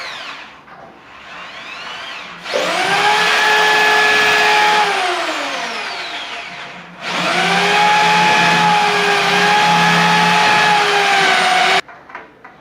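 Handheld electric power tool motor run in two bursts: it spins up to a steady whine, winds down with falling pitch, then runs again and cuts off suddenly near the end.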